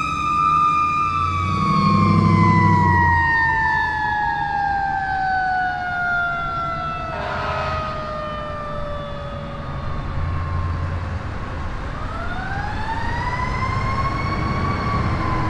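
Fire engine siren wailing: one tone with overtones holds briefly, slides slowly down over about ten seconds, then climbs again near the end. A short low blast sounds about two seconds in, with the truck's engine rumble beneath.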